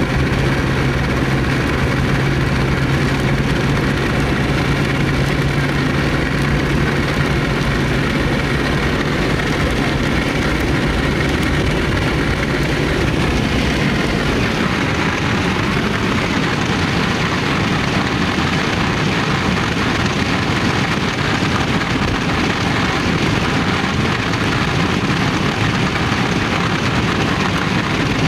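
Steady rushing noise of a vehicle, with a low steady hum that stops about halfway through, leaving a rougher low rumble.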